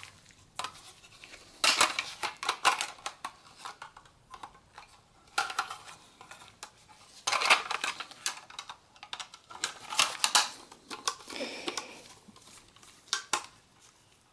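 Plastic drive caddies being handled and snapped together: a 2.5-inch SSD adapter caddy clipping into a desktop PC's hard drive caddy. There are several spells of quick clicks and rattles.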